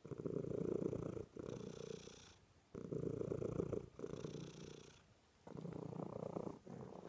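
Domestic cat purring steadily in repeated stretches of about a second each, with short pauses between breaths: a relaxed, contented purr while being cuddled on a lap.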